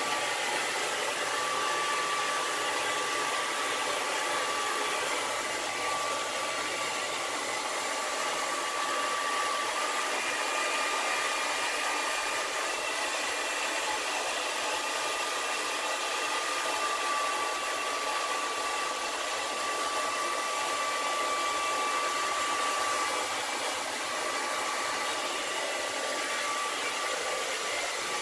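Hand-held hot-air blower running continuously with a steady rushing hiss and a faint whine, heating tint film so it shrinks and conforms to the curved light lens.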